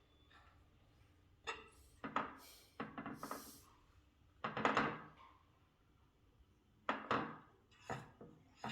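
A few soft thunks and knocks of things being handled and set down, spaced out over several seconds.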